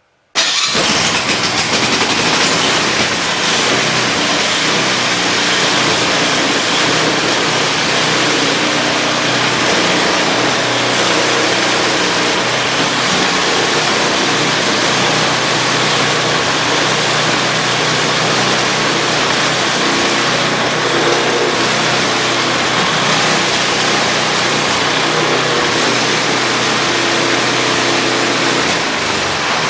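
MTD snowblower's small engine running steadily after starting abruptly about half a second in, with no bad noises from the repaired auger.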